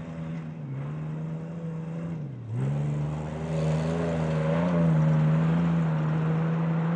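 Off-road race truck's engine running at high revs. Its pitch drops briefly twice in the first few seconds, then holds fairly steady and gets louder.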